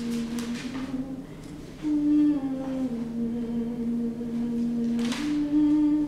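A person humming a slow, wordless tune in long held low notes that step up and down in pitch, with a short breathy hiss about five seconds in.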